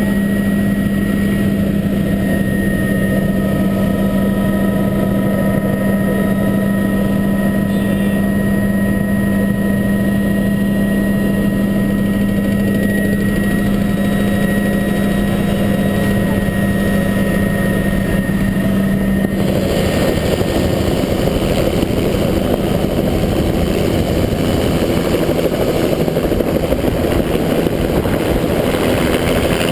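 Helicopter cabin noise in flight: a steady drone with a strong low hum and a fainter high whine. About two-thirds of the way through, the hum drops away and a rougher rushing noise takes over.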